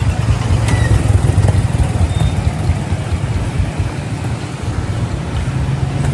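Steady low rumble of nearby road traffic, with vehicle engines running.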